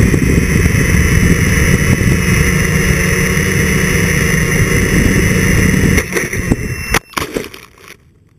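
Brushless motors and propellers of a Q450 quadcopter (NTM Propdrive 28-26 motors) whining steadily, with heavy rumble from the prop wash, heard from the onboard camera. About six seconds in the sound drops. Near seven seconds a sharp knock comes as the quad hits a bush, and the motors stop about a second later.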